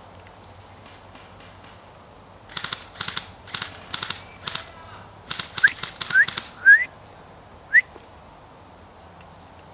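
Rustling footsteps through dense bracken, about two crunchy strokes a second, starting a few seconds in. Four short, loud rising chirps come near the middle.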